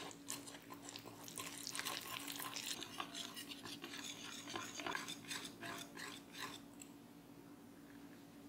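Wire whisk beating a flour-and-water batter in a glass bowl: a quick run of wet slaps and clicks of the wires against the glass, which stops after about six and a half seconds.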